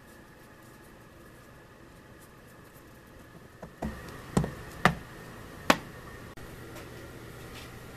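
Four sharp knocks in quick succession about halfway through: a rubber mallet tapping a wooden block to seat a rubber gasket into a routed groove in an MDF vacuum-fixture template. A faint steady hum runs underneath.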